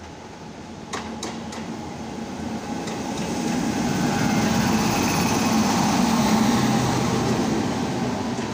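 An electric locomotive hauling the Rajdhani Express passing close by on the next track, its rumble and wheel noise building loud as it comes alongside and holding as the coaches go by. A few sharp clicks about a second in.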